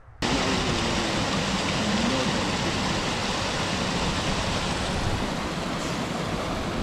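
Mountain stream rushing over a small cascade and across a cobbled stone ford: a steady, loud rush of water that cuts in suddenly a moment in.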